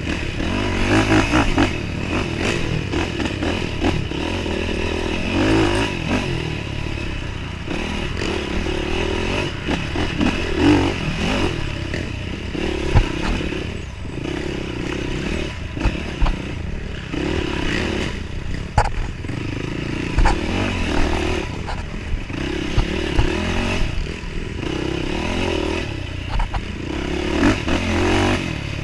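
Engine of an off-road race machine under hard throttle, its pitch rising and dropping every second or two as the throttle opens and closes. Sharp knocks and clatter come from the machine bouncing over rough trail.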